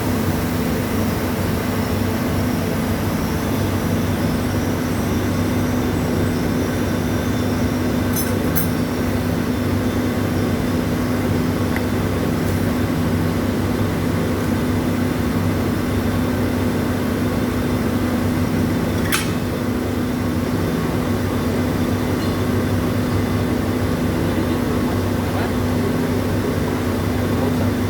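Industrial screw compressor running with a steady, even drone and a low hum, unchanging throughout, with a few faint clicks.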